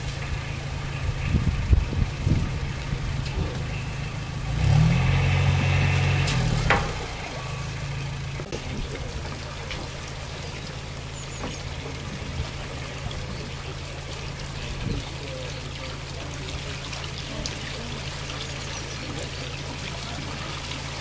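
A narrowboat's engine idling in a lock chamber, revved briefly for about two seconds near the middle, with water pouring into the lock as it fills. A few knocks come about two seconds in.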